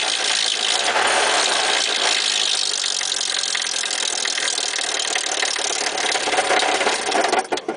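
Lada Niva engine running under throttle, making a loud racket that drops away abruptly near the end; the owner suspects a run connecting-rod bearing.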